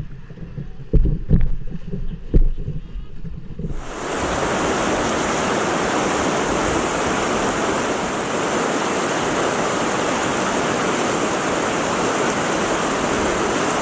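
Several low thumps in the first few seconds, then, about four seconds in, a sudden loud, steady rush of white water from a river rapid.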